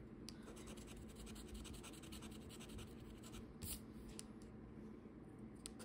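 Faint, quick scratching strokes scraping the coating off a Loteria lottery scratch-off ticket, with one louder stroke about midway.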